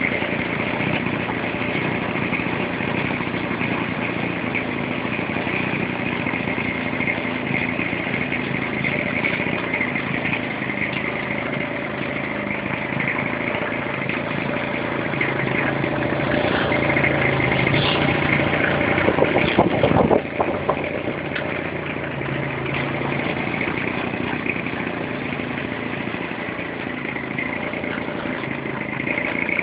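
Fuji 50cc two-stroke petrol engine of a large RC model aircraft running steadily at low throttle. About two-thirds of the way through it gets louder, then drops back suddenly.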